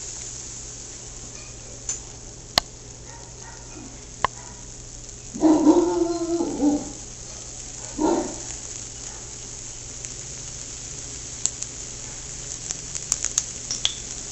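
Battered corn dog frying in hot oil: a steady sizzle with scattered crackling pops, which grow more frequent near the end. Two loud pitched cries, one longer and one short, cut in about halfway through.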